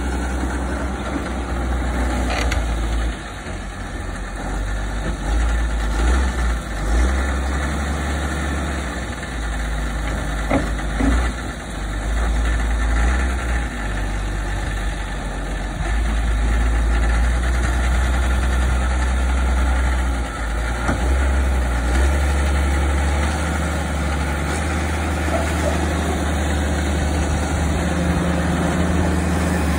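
Wheel loader's diesel engine running as the machine moves and works its bucket, a steady low rumble that grows louder and softer in stretches.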